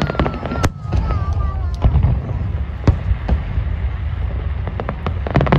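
Aerial fireworks display going off: a string of sharp bangs and crackles from bursting shells over a continuous low rumble, with a thick cluster of reports near the end.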